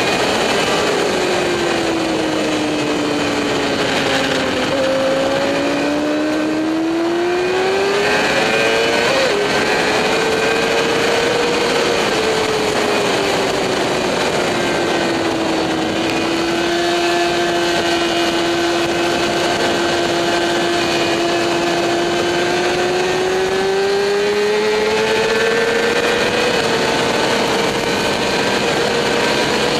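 Motorcycle engine heard on board at track speed, over a constant rushing noise. Its note falls over the first few seconds, climbs, dips and holds steady for several seconds, then climbs again near the end.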